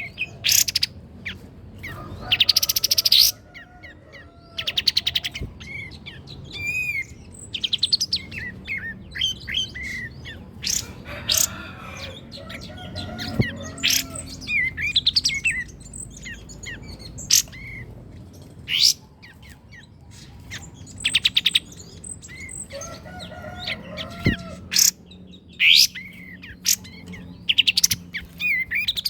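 Caged songbird singing loud, varied phrases of whistles, slurred notes and rapid trills with short pauses between them, the kind of masteran recording played to tutor songbirds such as magpie robins.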